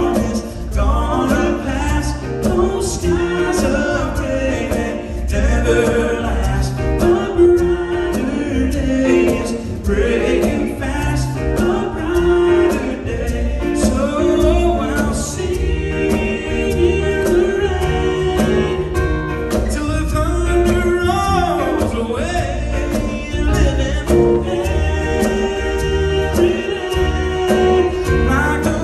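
Live acoustic gospel music: male voices singing over strummed acoustic guitars.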